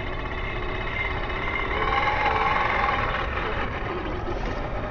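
Electric motor and gear drive of an Axial SCX10 III 1/10-scale RC crawler whining as it churns through loose sand, its pitch rising and falling with the throttle and loudest about two seconds in.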